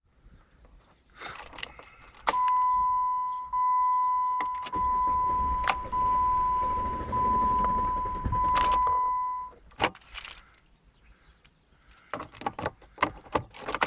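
Keys jangle and click in the ignition of a 2008 Jeep Commander, then the dashboard warning chime sounds as a steady high beep, repeating about once every 1.2 seconds, about six times. A low rumble runs under the middle of the chimes. This is the noise the Jeep makes when it refuses to restart hot after a long drive, a fault that a new starter and a new ignition switch have not cured. After the chimes stop, the key clicks a few more times.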